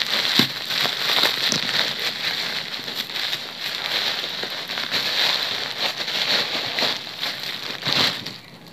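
Plastic packaging crinkling and crackling as a bundle of plastic-wrapped hijabs is pulled out of a plastic mailer bag, dying away near the end.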